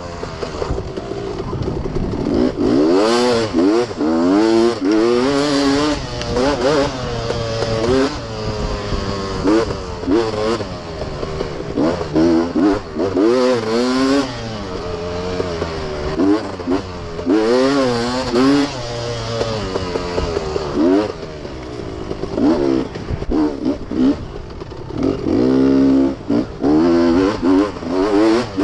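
Beta off-road dirt bike engine revving up and dropping back over and over as it is ridden hard over rough ground. The bike's chassis clatters and knocks over the bumps.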